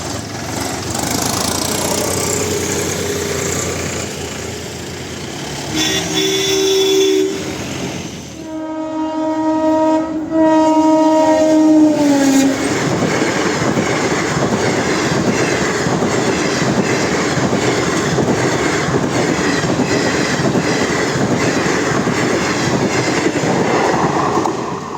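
Indian Railways electric train sounding its horn: a short blast, then a long blast broken once, its pitch dropping as the train passes. The train then rolls by for the rest of the time, wheels clattering over the rail joints.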